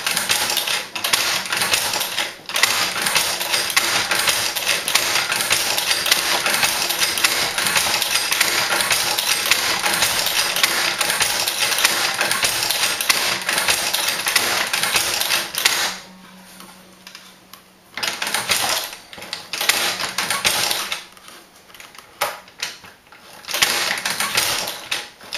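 Tippmann Boss hand-operated leather stitcher sewing through holster leather, its needle and mechanism clacking rapidly stitch after stitch. The clatter runs on for most of the time, pauses about two-thirds of the way through, then comes back in short spells.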